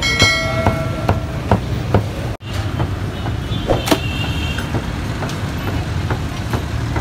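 Steady low rumble of street traffic with scattered sharp knocks of cleaver chops on a wooden block. Just after the start, one knock is followed by a ringing tone that lasts about a second, and about four seconds in there is a brief high tone.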